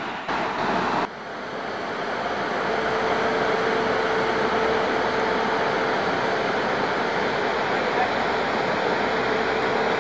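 Steady rushing noise of an electric locomotive's cooling blowers as it stands with the crew boarding, with a faint steady hum tone running through it.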